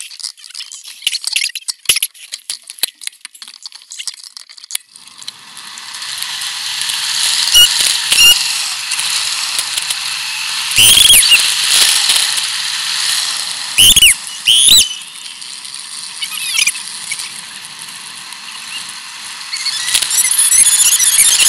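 Bicycle riding: scattered clicks and rattles, then a rushing of wind and tyres that builds from about five seconds in. Short high squeals come with a few loud knocks around the middle, and a flurry of squeaks near the end.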